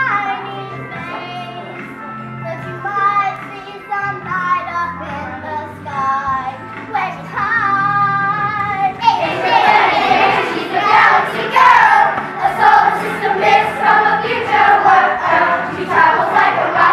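A child's solo singing voice over instrumental accompaniment, and about nine seconds in a group of children's voices joins in, much louder and fuller.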